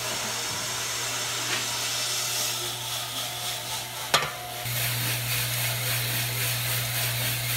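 Green coffee beans running out of a Joper drum roaster's hopper into the turning drum: a steady rushing hiss over the roaster's low motor hum. A sharp click about four seconds in, after which the hiss and hum get louder.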